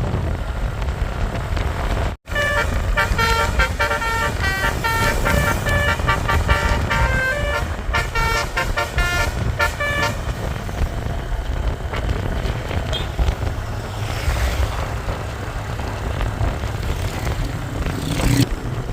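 Bus telolet horn (Basuri multi-tone air horn) playing a quick melodic tune of changing notes from a few seconds in until about ten seconds in, over steady bus engine and road rumble. The sound cuts out completely for a moment about two seconds in, and after the tune only the road and engine rumble with some wind is left.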